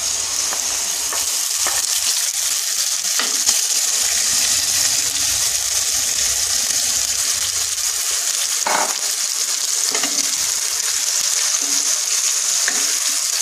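Beetroot paste sizzling as it hits hot mustard oil in a non-stick frying pan and is stirred with a wooden spatula: a steady, high frying hiss with a few short scrapes and taps.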